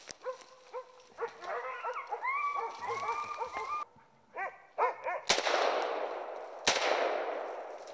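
Hunting dogs barking and yelping excitedly, several calls overlapping, then two gunshots about a second and a half apart, each followed by a long fading echo.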